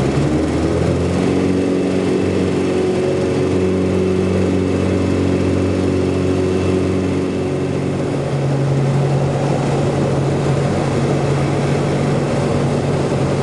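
Jabiru LSA 55 light aircraft's engine and propeller, heard from inside the cockpit, running steadily; the engine note rises about a second in as power comes up and drops back about seven seconds in as power is eased off.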